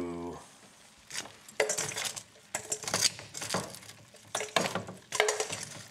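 Metal kitchen tongs clinking against a stainless steel mixing bowl and a metal sheet pan as cooked chicken wings are picked up and dropped into the bowl. A string of sharp metallic clinks, some ringing briefly.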